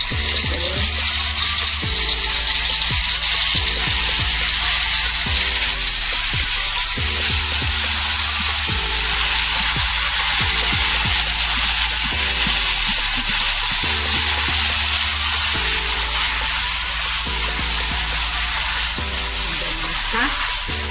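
Ground red chili and shallot paste sizzling steadily as it fries in hot oil in a stainless steel wok, stirred with a silicone spatula. About halfway through, more chili paste is poured into the oil from a bowl.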